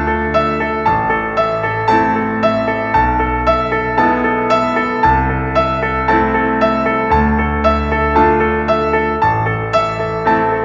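Background piano music: gentle, evenly paced notes over sustained bass chords.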